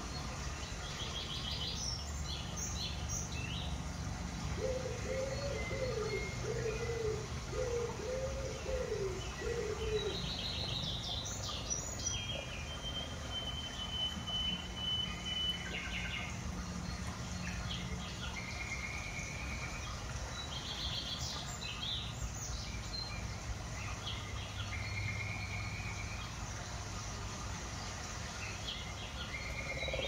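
Several small birds chirping and trilling in scattered calls, with a low cooing phrase of about five notes a few seconds in and one long, thin, even whistle near the middle. A steady low hum runs underneath.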